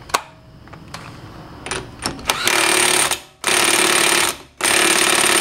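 Impact wrench hammering the CV axle nut tight onto the wheel hub in three bursts of about a second each, after a few light clicks.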